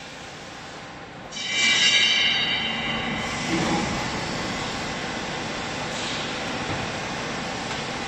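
Hydraulic baler's motor and pump starting up about a second in, with a loud high-pitched squealing whine for a couple of seconds, then running steadily.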